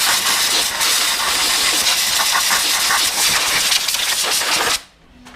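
Loud, steady hiss of rushing air that starts abruptly and cuts off about five seconds in.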